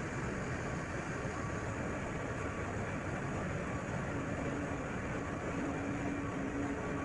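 Container ship engine-room machinery running: a steady, loud mechanical din, with a low steady hum that comes in about four seconds in.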